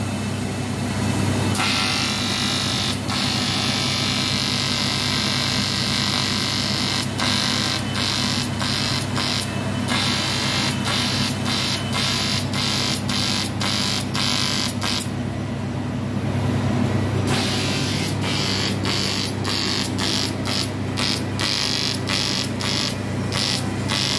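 TIG welding arc buzzing steadily as a crack in an alloy car wheel rim is welded, with a couple of short breaks where the hiss drops out.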